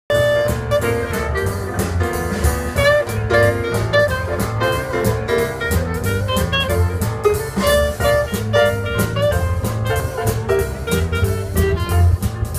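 Traditional jazz band playing live, an instrumental opening with a clarinet carrying the melody over double bass and drum kit keeping a steady beat.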